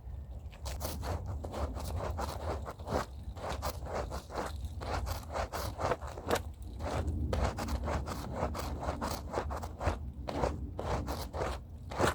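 A scrub brush scrubbing a rug by hand: quick, repeated scraping strokes, a few a second and uneven in rhythm, over a low steady rumble.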